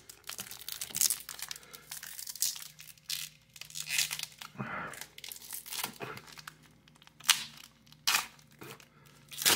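Plastic wrapper of a baseball card pack crinkling and tearing as it is handled and opened, in irregular crackles with a few sharper snaps near the end.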